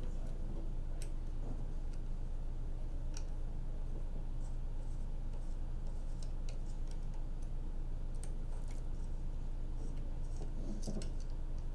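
Sparse, faint clicks of a 2.5 mm Allen key working in a small screw head as a module is screwed down snug in a torque wrench controller, over a steady low hum.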